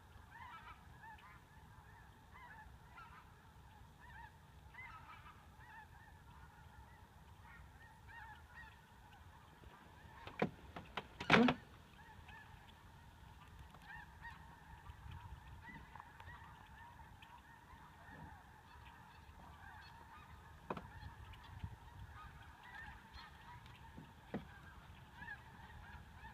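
Flocks of geese honking overhead, a continuous chorus of many calls. About ten seconds in, a short, loud burst of noise stands out as the loudest sound.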